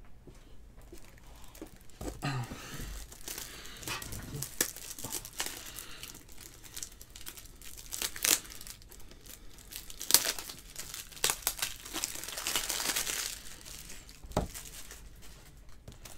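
Plastic packaging being handled, crinkling and torn open, with scattered sharp clicks and taps from handling.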